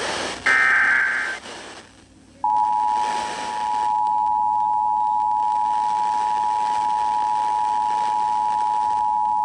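A brief burst of the Emergency Alert System's SAME header data tones, then about two seconds in the EAS attention signal starts: a steady, loud two-tone alert held unchanged, announcing a tornado warning broadcast.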